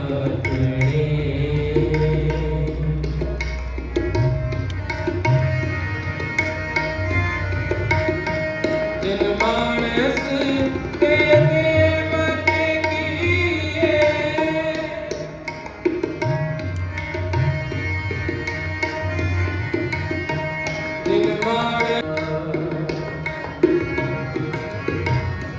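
Shabad kirtan: a ragi singing to a harmonium's held reed chords, with tabla strokes keeping the beat.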